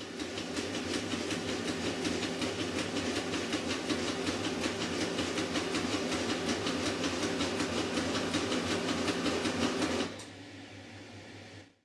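Laser printer running a print job with rapid, evenly spaced clicking over the hum of its motor. The clicking comes from the printer's drive not properly engaging the installed toner cartridge. About ten seconds in, the sound drops to a quieter run and then stops.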